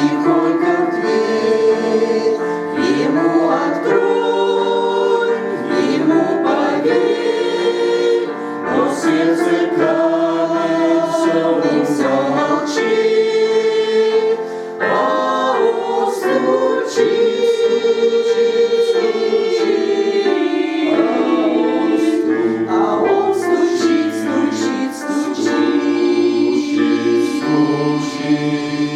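Church choir singing a hymn in several-part harmony, with long held chords.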